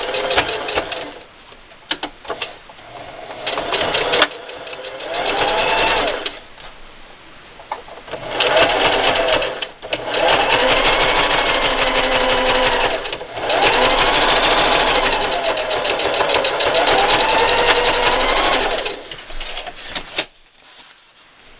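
Electric home sewing machine running a small zigzag stitch in stop-start runs, speeding up and slowing down as the pedal is pressed and eased. Short runs with a few clicks come first, then long steady runs in the second half, stopping shortly before the end.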